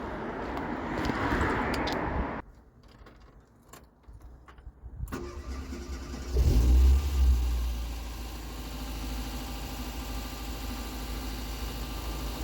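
1990 Ford Fiesta Mk3's carburettor petrol engine, on fresh HT leads and plugs, cranking over and firing into life quickly about six seconds in with a brief loud burst of revs, then settling into a steady run on the choke. A rushing noise fills the first two seconds before a quiet spell.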